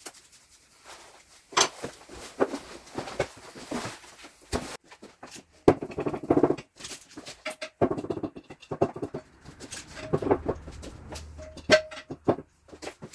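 Irregular clinks and knocks of hand tools against metal engine parts, some of them ringing briefly.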